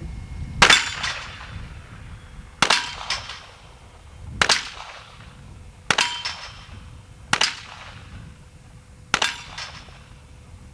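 .38 revolver fired six times in slow succession, a shot every one and a half to two seconds, each crack followed by a short echoing tail.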